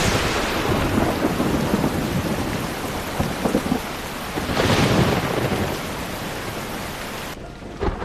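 Heavy rain with rolling thunder: a thunder roll at the start and a second one swelling about halfway through, over steady rain. Near the end the rain cuts off abruptly.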